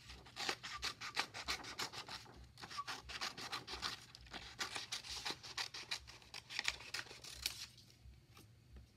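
Scissors cutting through construction paper: a quick run of crisp snips mixed with paper rustling and handling, easing off near the end.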